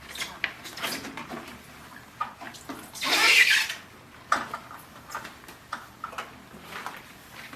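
Light knocks and clicks of dishes and utensils being handled, with one short, loud burst of noise about three seconds in.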